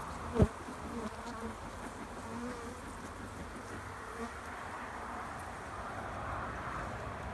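Honeybees buzzing steadily around an open hive, with single bees droning past. A sharp thump about half a second in.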